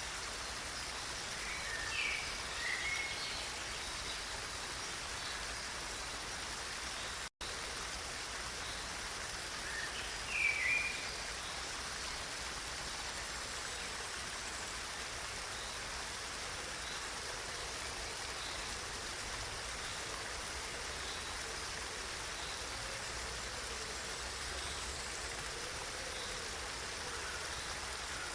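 Steady rush of running water. A bird chirps briefly about two seconds in and again about ten seconds in, and the sound cuts out for an instant around seven seconds in.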